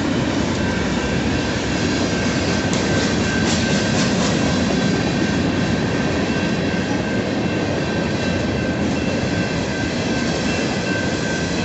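BNSF freight train rolling past: a steady rumble of wheels on rail, with a thin, steady high-pitched squeal over it.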